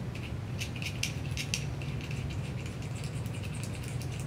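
Light clicks and scratches of a small plastic and metal nut being threaded by hand onto a UMP3 microinjection pump's syringe holder. A few sharper clicks come about a second in, with fainter ticks after, all over a steady low hum.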